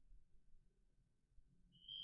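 Near silence with a faint hum, then, near the end, a steady high electronic tone from the Vtech Schnarchi sloth toy's speaker starts and holds.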